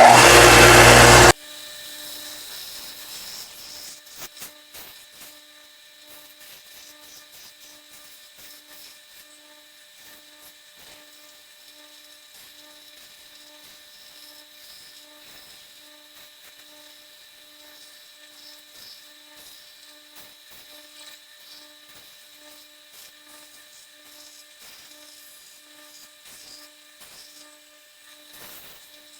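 Belt and disc sander sanding small wooden pieces. The motor is loud for about the first second and then drops off sharply. After that comes a much fainter steady hum that pulses slowly, with scratchy rubbing of wood against the abrasive.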